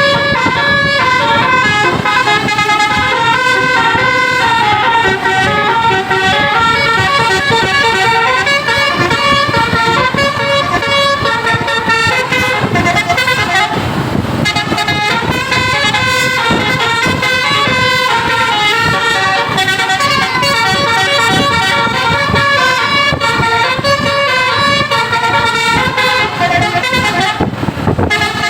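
Bus basuri telolet horn, a set of multi-trumpet air horns, playing a fast melodic tune of stepped notes without pause, with the bus's engine running beneath.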